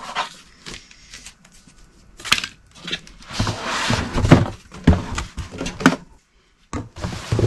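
Cardboard box and packing being handled as a portable power station is lifted out: rustling with several sharp knocks and thumps.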